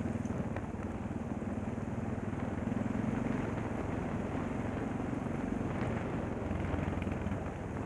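Adventure motorcycle engine running steadily as the bike rides along a muddy dirt track, a little louder about three seconds in.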